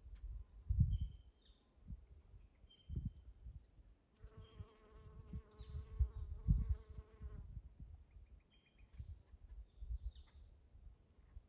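A honey bee buzzing near the microphone for about three seconds in the middle, a steady hum, with short bird chirps scattered throughout. Low rumbling bumps come and go and are the loudest sounds.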